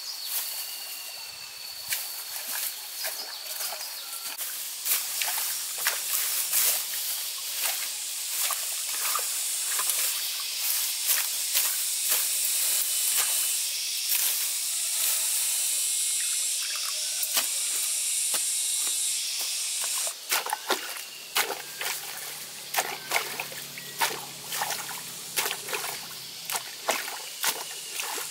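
A long-handled hoe hacks and tears through bamboo, grass and ferns, with repeated sharp chops and crackling, rustling leaves. In the last several seconds the strokes come singly and louder, with muddy water sloshing.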